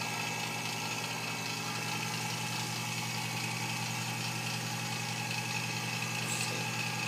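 Vacuum pump running steadily, a constant hum with a thin high whine, pulling vacuum on a purge chamber to draw residual butane out of the extract.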